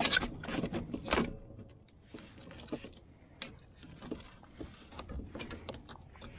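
Handling noise as a speared fish and its arrow are shifted along a measuring stick on a plastic kayak: a quick run of sharp knocks and clicks in the first second or so, then scattered lighter clicks and rustling.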